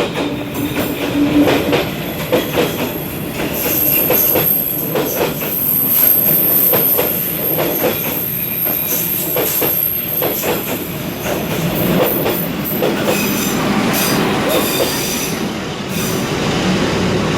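A train rolling past at close range, its wheels clicking over the rail joints, with a thin high wheel squeal about four seconds in.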